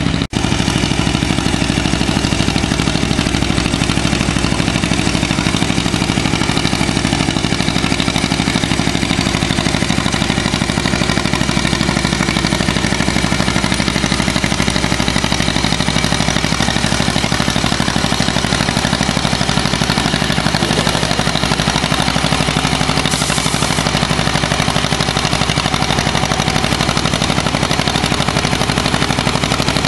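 Antique John Deere two-cylinder tractor engine running steadily at pulling throttle, under load as it drags a weight-transfer sled.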